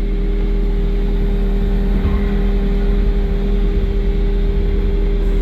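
John Deere 323 skid steer's diesel engine running steadily.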